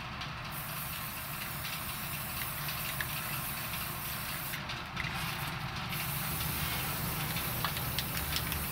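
Aerosol spray paint can hissing as it coats steel key-base discs. The spray starts about half a second in and breaks off briefly around five seconds in, over a low steady hum.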